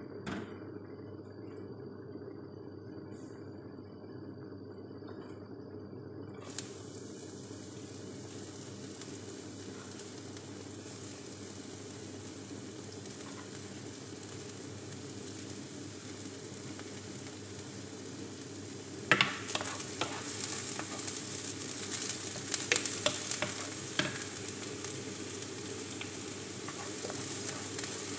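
Diced onion sizzling in hot olive oil in a nonstick frying pan; the sizzle starts suddenly about six seconds in, as the onion goes into the oil. From about nineteen seconds a wooden spoon scrapes and taps against the pan as the onion is stirred, over a steady low hum.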